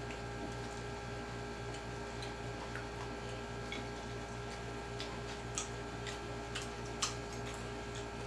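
Mealtime eating sounds: scattered small clicks and smacks of chewing and of utensils on plates, a few sharper near the end, over a steady electrical hum.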